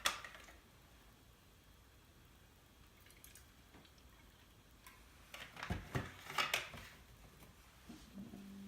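Mostly quiet, with a few sharp clinks and knocks of kitchen utensils and containers against a bowl, bunched together in the second half while milk is added to a sauce mixture. A low steady hum starts near the end.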